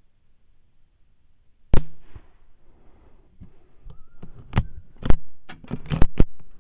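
A single rifle shot about two seconds in, heard through the thermal rifle scope's built-in microphone. After it comes a run of sharp clicks and knocks over the last few seconds.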